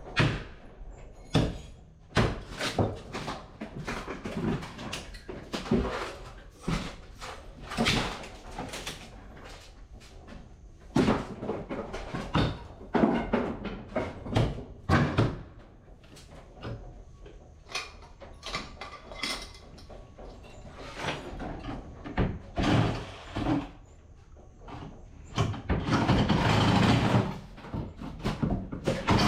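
Irregular knocks, bangs and thuds of building demolition work, as old window frames and trim are pried and knocked out. Near the end a steadier, louder noise sets in.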